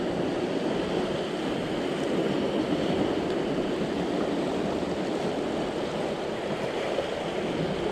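Steady surf: sea swell washing over and around shoreline rocks.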